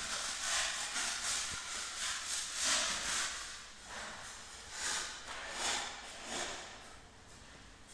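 Footsteps scuffing on a hard tiled floor at walking pace, a soft hissing scrape about every half to three-quarters of a second, growing fainter near the end.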